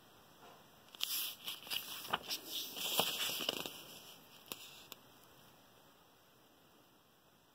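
Paper workbook pages being flipped and handled: a run of crisp rustles and crackles with a few sharp clicks, starting about a second in and dying away after about five seconds.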